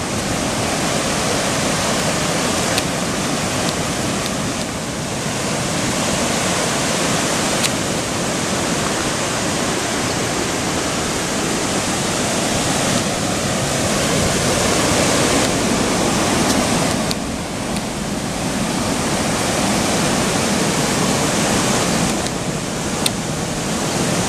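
Creek in flood: muddy floodwater rushing over rapids in a loud, steady rush of white water.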